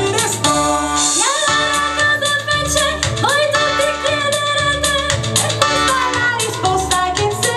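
A vocal group singing, a woman's voice out front, with long held notes in harmony over a steady beat.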